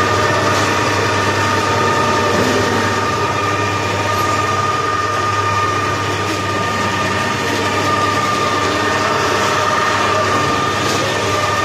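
Electric-driven 4 m³ vertical TMR feed mixer running steadily: a constant mechanical hum with a steady whine over it.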